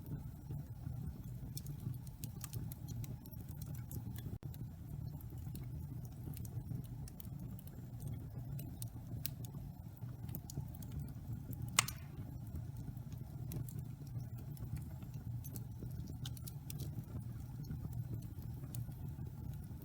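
Wood fire burning in a fireplace: a steady low rumble of flames with scattered sharp crackles, and one louder pop about twelve seconds in.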